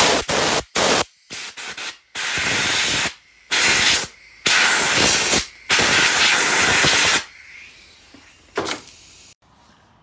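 Compressed-air blow gun hissing in a series of blasts, some short and some over a second long, blowing dust out of a pleated vacuum-cleaner air filter. The blasts stop suddenly about nine seconds in.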